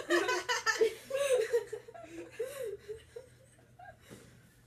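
Boys laughing, loudest in the first second or so and dying away over the next three seconds.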